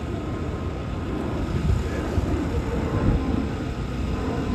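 Airbus A220-100's Pratt & Whitney geared turbofan engines at takeoff-climb power as the jet climbs away overhead: a steady low rumble with irregular surges and a faint steady whine on top.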